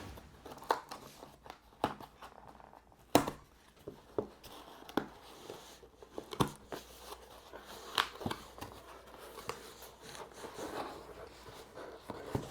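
Scissors snipping through the tape sealing a small cardboard box, with packaging rustling. Sharp clicks come at irregular intervals, the loudest about three seconds in.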